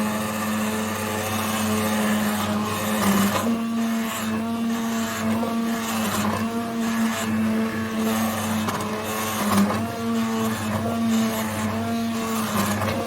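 Electric hand (immersion) blender running steadily as it purées a pot of cooked potatoes, garlic and onion in broth into garlic soup; its motor pitch dips briefly a few times.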